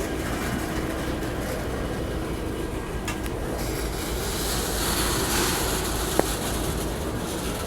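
Freight train rolling past, a steady rumble and rail noise from the cars going by, with one short sharp sound about six seconds in.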